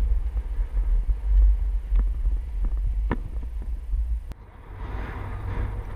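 Wind buffeting a helmet or chest camera's microphone as a skier glides downhill, a heavy low rumble with a few sharp clicks. About four seconds in the sound cuts off abruptly and turns to a quieter background hiss.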